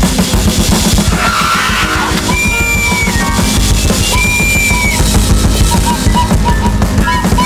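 Noise/free-improv music: a Roland TD-17 electronic drum kit played fast and dense, with a high synth tone held twice in the middle and short repeated synth blips near the end.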